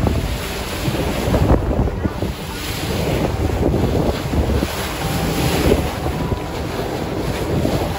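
Wind buffeting the microphone on a moving boat at sea, over the rush of waves and water along the hull.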